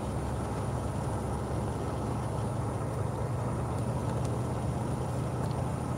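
Steady drone of a semi truck's diesel engine and tyres, heard from inside the cab while cruising.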